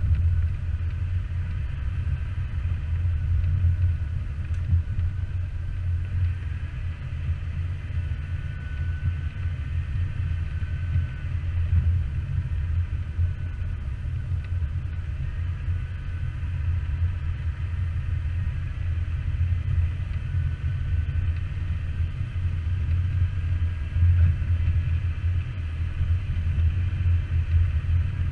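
Jeep driving on an off-road trail, its engine and drivetrain giving a low, steady sound that swells and eases slightly.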